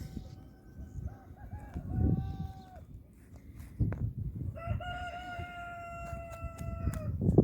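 Two long, drawn-out animal calls held at a nearly steady pitch: a shorter one about two seconds in, and a longer one of about two and a half seconds near the end. A low rumble runs underneath, with a couple of knocks.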